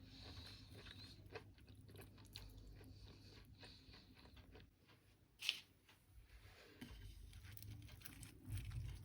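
Faint crunching and chewing of crispy batter-fried oyster mushroom, with irregular small crackles and one sharper crunch about halfway through.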